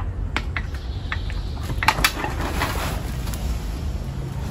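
Young puppies crying faintly from inside a room: short, scattered high whimpers, most noticeable about two seconds in, over a steady low hum.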